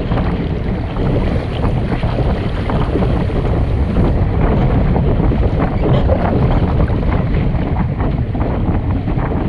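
Loud, steady wind buffeting the microphone, with water sounds from a Sunfish sailing dinghy under way.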